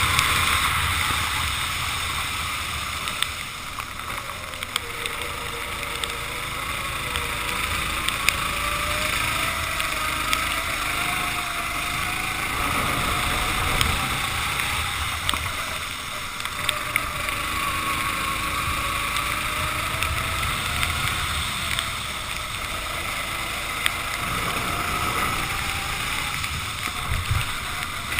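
Racing kart engine heard onboard on a wet track, its pitch rising and falling slowly with the throttle through corners, under a steady hiss of wind and water spray, with a few short clicks.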